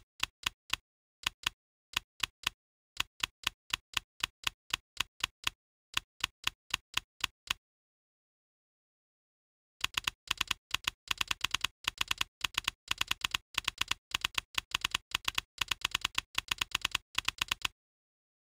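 Typing sound effect: a run of sharp key clicks, about three or four a second, then about two seconds of dead silence, then a faster, denser run of clicks that stops shortly before the end.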